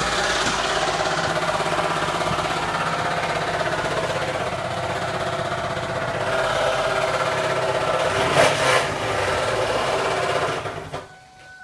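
2001 Ford Taurus's 3.0 L Vulcan V6 running with a rapid, steady knocking, which the owner locates at the oil pan area, typical of a bottom-end knock. The engine noise cuts off near the end.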